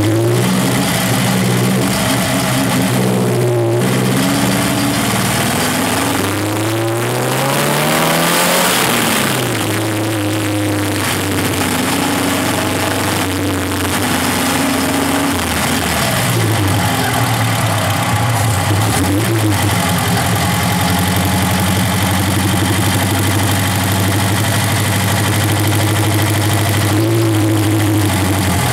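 Chevrolet Chevette's OHC four-cylinder engine under way, rising in pitch as it accelerates and dropping back at gear changes about a third and half of the way through. It then holds a steady pitch and rises again near the end.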